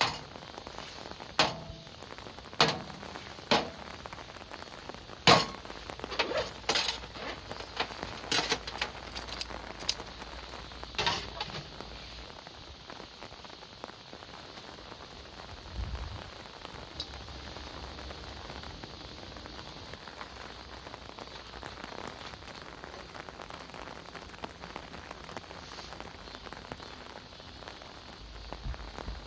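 Steady rain falling. About a dozen sharp clicks and knocks stand out over it during the first half, then stop.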